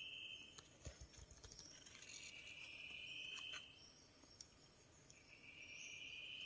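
Faint insect calls: a steady high buzz about a second and a half long, repeating about every three and a half seconds.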